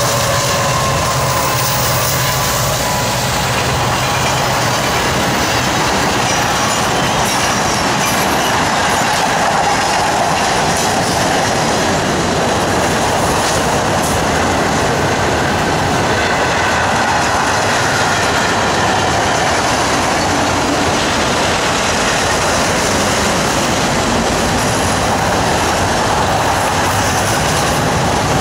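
A freight train passing at speed. The diesel-electric locomotives' engines drone by over the first few seconds and fade. Then a string of autorack cars rolls past with a steady clatter of wheels on the rails and faint wheel squeal now and then.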